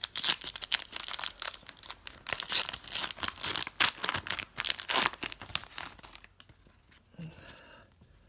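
A hockey card pack's wrapper being torn open and crinkled, a dense crackling that stops about six seconds in.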